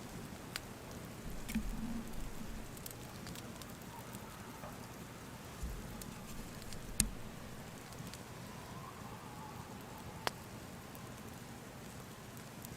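Steady hiss of a snowstorm with a campfire crackling, a few sharp pops standing out, the loudest about seven seconds in.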